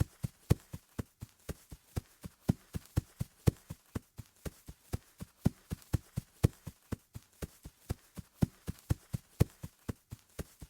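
Footsteps of a person running on grass: a fast, even rhythm of about four thudding steps a second, some landing harder than others.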